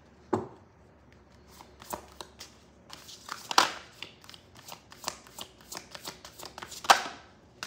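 Tarot cards being handled and shuffled: a string of quick papery flicks and taps, with a few sharper snaps standing out.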